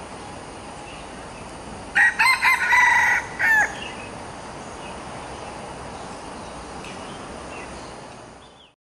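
A rooster crowing once, about two seconds in, a loud call of about a second and a half broken into several short syllables, over a steady hiss.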